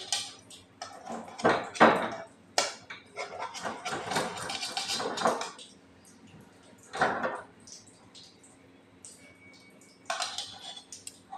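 Kadhai and kitchen utensils clanking and scraping as the cook handles them, with irregular knocks and a longer stretch of scraping in the middle; the loudest knock comes about two seconds in.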